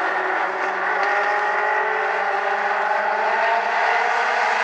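A pack of Legends race cars running together around the oval, several engines' notes overlapping, with the pitch climbing slightly in the second half as the field comes up to speed for the green flag.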